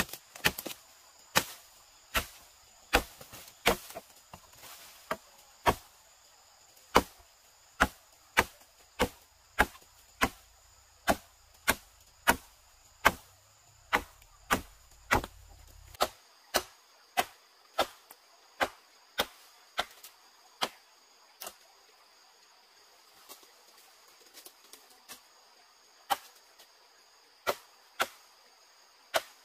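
A hand tool striking over and over in a steady rhythm, about three blows every two seconds, like chopping. Near the end it pauses briefly, gives a few softer taps, then strikes again. Insects keep up a steady high-pitched drone behind.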